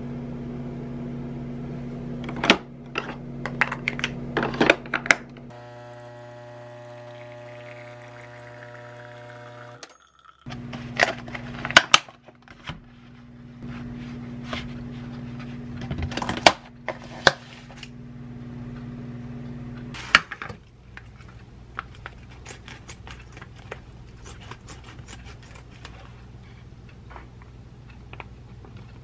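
Nescafé Dolce Gusto capsule coffee machine handled with clicks and knocks, then buzzing as it runs for about four seconds. After that a steady low hum continues under light clicks and taps of hands handling cherry tomatoes and food packages.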